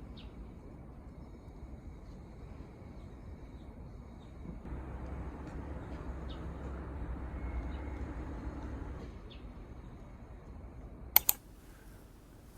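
Outdoor background hum with a few short, faint bird chirps scattered throughout. A sharp double click about eleven seconds in is the loudest sound.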